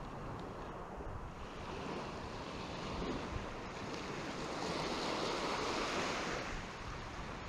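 Small surf breaking and washing up a sandy beach, the wash swelling twice, with wind buffeting the microphone underneath.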